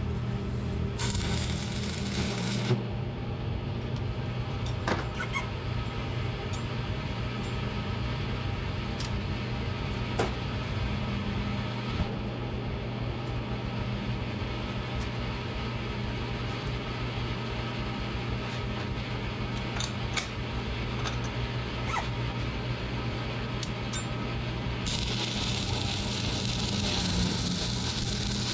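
Scattered sharp metallic taps and clicks of hand tools working on the ATV rear axle's bearing inner race, over a steady low hum. A hissing rush of noise comes in near the end.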